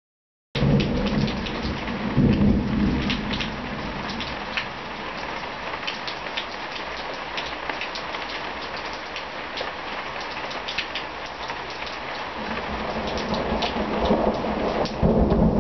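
Heavy rain falling, with many separate drop hits, under rolling thunder that rumbles low, strongest just after the sound starts about half a second in and building again near the end.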